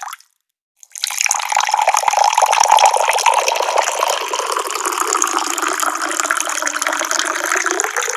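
Water pouring steadily from a tap. It breaks off completely just after the start and comes back about a second in.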